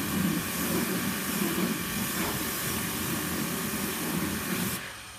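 Garden hose spraying water against a car's body: a steady rushing hiss that cuts off suddenly near the end.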